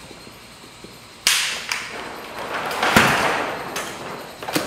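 Rube Goldberg machine working its last stage: a sudden rushing noise about a second in that swells and fades, fitting a ball rolling along a wooden track, then sharp clicks near the end.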